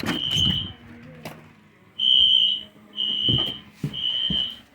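Wheelock NS fire alarm horn sounding a steady high tone in the temporal-3 evacuation pattern: one blast ends a group, then after a pause of about a second come three blasts in a row.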